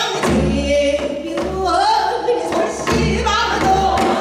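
A woman sings Korean traditional vocal music, most likely pansori, in a strong, wavering voice with wide vibrato. Low accompaniment and a few sharp strikes mark the beat.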